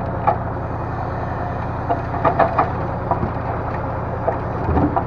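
Timber truck's engine running steadily while its hydraulic loader works, with a few sharp knocks of logs being handled, a cluster about two seconds in and another near the end.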